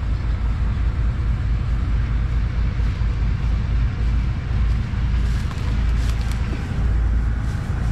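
Diesel engine of an Isuzu Deca 320 sugarcane truck idling with a steady low rumble. A few light metal clinks come about five to six seconds in as the trailer drawbar coupling is handled.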